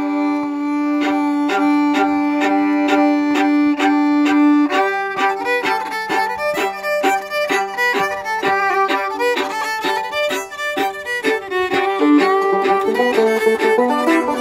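Two fiddles playing a traditional session tune, opening on a long held drone note under steady repeated bow strokes before the quick melody starts about five seconds in. A banjo plays along, coming through more near the end.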